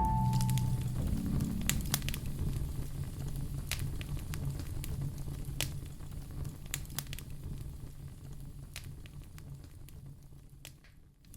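Wood fire crackling in a fireplace: scattered sharp pops and snaps over a steady low rumble of burning logs, growing gradually quieter toward the end.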